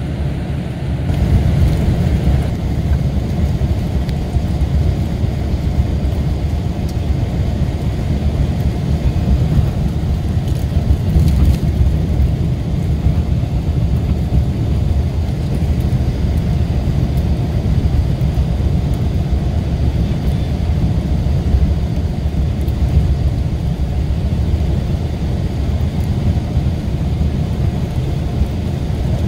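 Mercedes-Benz O-500RSD coach's rear-mounted diesel engine running steadily on the road, a loud, deep drone that gets louder about a second in.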